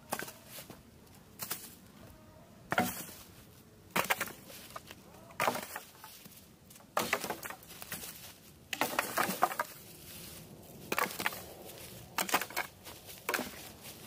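Dry twigs and leaf litter crunching and snapping, about eight sharp crunches at irregular intervals, a few in quick succession a little past the middle.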